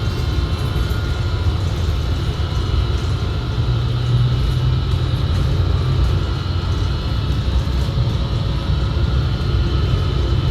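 Inside a 2019 New Flyer XD60 articulated bus under way: a steady low rumble with a constant high whine laid over it. The whine comes from the bus's transmission, which the rider calls very weird, and it drowns out most of the engine sound.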